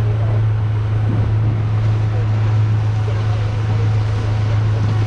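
Fishing boat's motor running steadily under way, a constant low hum, with wind and water noise.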